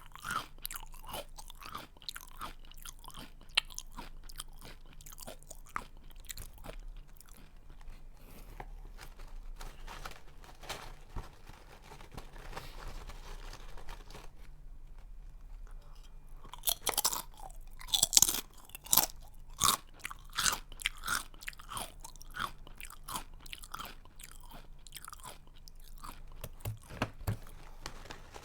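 Close-miked chewing of a crunchy snack: irregular crisp crunches all through, with a run of louder, sharper crunches past the middle.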